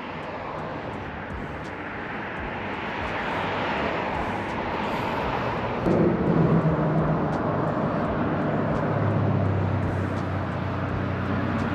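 Steady engine noise of a passing motor, swelling and easing, with a low hum that joins about six seconds in.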